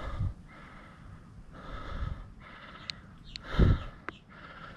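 A man breathing hard in and out after exertion, several rasping breaths about a second apart, with one louder, deeper burst of noise about three and a half seconds in.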